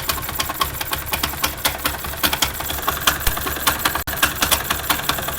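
Bajaj Pulsar 220's single-cylinder engine running with a rapid, irregular clattering knock ("kadak kadak") over the engine's steady run. The mechanic takes it for a loose or broken starter one-way clutch behind the magneto (its retaining bolts sheared) rubbing against other parts.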